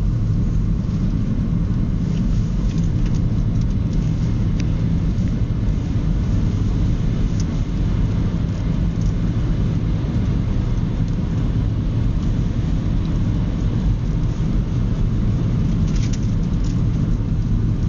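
Steady road and engine rumble of a car driving at speed, heard from inside the cabin.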